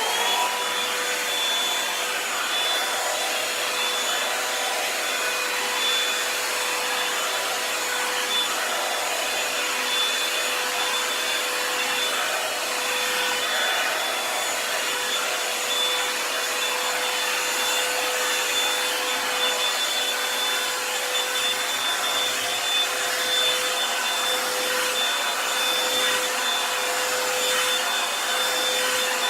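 Revlon One-Step hair dryer and styler (paddle-brush dryer) switched on at its high setting. The motor spins up quickly at the start, then runs steadily: a loud rush of air with a steady whine.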